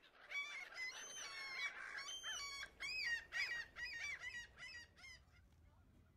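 A flock of birds calling: many short, rising-and-falling calls in quick succession and overlapping, dying away about five seconds in.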